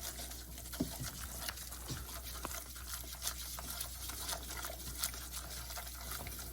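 Butter-and-flour roux being stirred in a pan: a steady light sizzle with many small scattered clicks of the utensil against the pan.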